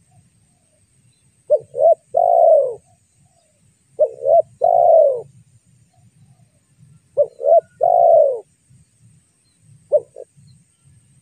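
Spotted dove cooing: three phrases, each two short coos followed by a longer falling coo, a few seconds apart, then a fourth phrase that stops after its two short notes near the end.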